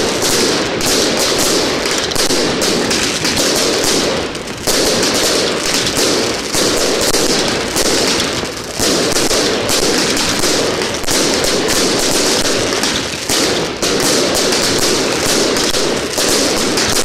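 Fireworks going off in a loud, dense, unbroken barrage of crackling and rapid popping, with brief lulls about four and a half and nine seconds in.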